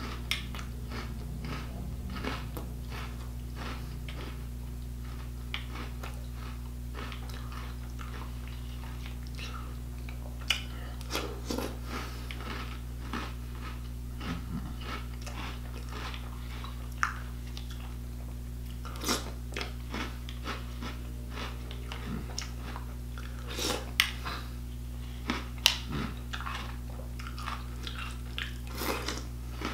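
Someone eating a bowl of cereal close to the microphone: irregular crunching and chewing, with a few sharper clicks now and then, over a steady low hum.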